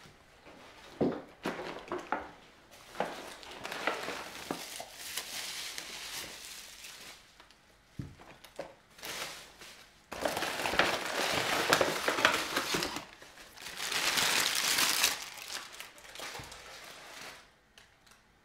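Paper crinkling and rustling as a paper shopping bag is handled and items are lifted out of it. It comes in two longer spells in the second half, after a few short knocks and handling sounds earlier on.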